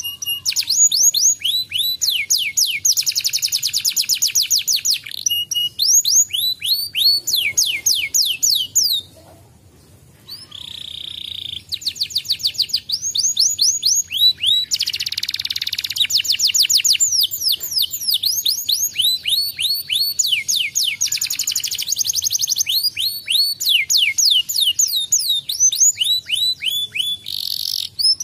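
Domestic canary singing a long song of fast, repeated downward-sliding notes strung into rapid trills, with a short break about nine seconds in.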